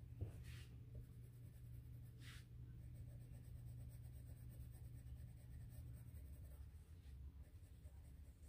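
Faint strokes of a Faber-Castell Goldfaber coloured pencil shading on paper, with a couple of slightly louder strokes about half a second and two seconds in.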